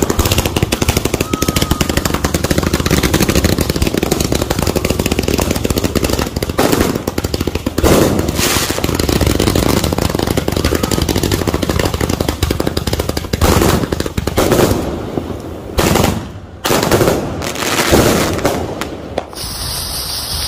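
A multi-shot fireworks cake firing a rapid barrage of shots in quick succession, with short breaks between volleys around three-quarters of the way through. Near the end the barrage gives way to the hiss of a lit fuse.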